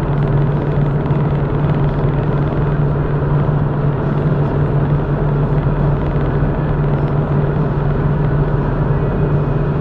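Steady drone of a car cruising at motorway speed, heard from inside the cabin: an even low engine hum under constant tyre and road noise, with no change in pitch.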